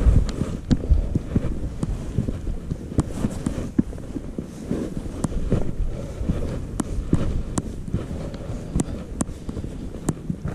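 Hiker's footsteps climbing a steep, rocky trail: irregular low thuds with scattered sharp clicks and scrapes of boots on rock.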